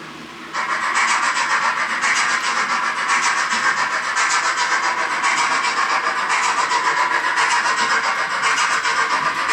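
Sound decoder of a Roco H0 class 01 steam locomotive model playing steam chuffing through the model's small speaker. The chuffing comes in with a quick, even beat about half a second in.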